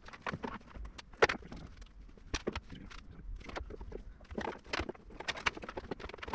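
Sped-up workshop sounds of hand work on a bare classic Mini body shell: an irregular run of short clicks, taps and knocks, the loudest about a second in and near two and a half seconds.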